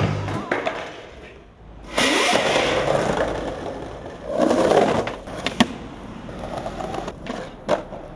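Skateboard wheels rolling over cobblestones with a rough, rattling rumble, followed by a couple of sharp clacks of the board.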